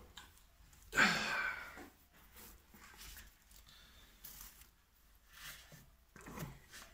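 Cloth rag wiping grease off a drill press's spindle housing: faint rustling and rubbing. A short sigh-like exhale about a second in is the loudest sound, with a smaller one near the end.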